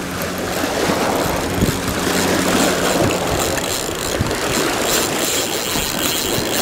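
Steady rushing noise of choppy river water washing and splashing against a rocky bank, with a few sharper splashes.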